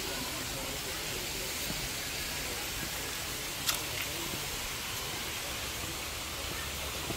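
Steady outdoor background noise, an even hiss, with one short click about halfway through.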